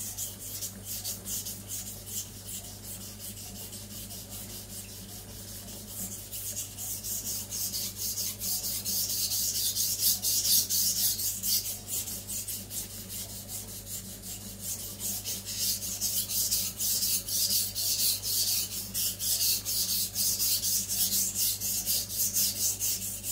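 Steel chef's knife blade stroked back and forth on a wet Naniwa Aotoshi 2000-grit whetstone, a rhythmic scraping rasp of quick repeated strokes as the blade's face is ground and blended. The strokes grow louder about a third of the way in.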